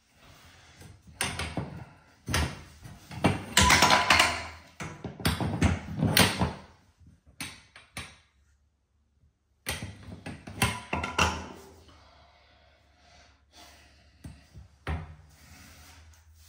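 A hand tool knocking, clicking and scraping against copper pipes in irregular bursts, with a short pause of near silence about halfway through.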